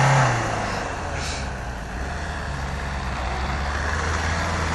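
Off-road vehicle's engine easing off from steady high revs just after the start, then running on at lower, steady revs that slowly build a little.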